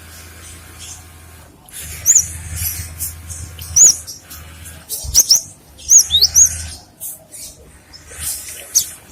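Gelatik batu (cinereous tit) calling: a run of short, sharp, high chirps, each note a quick up-and-down arch, coming irregularly from about two seconds in, with scratchy rustling between them.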